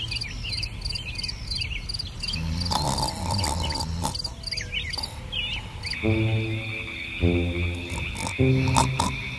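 Animated garden ambience: chirping birds and fast-pulsing insects, changing about six seconds in to a night chorus. In the night chorus a steady cricket trill runs under low croaks that repeat about once a second.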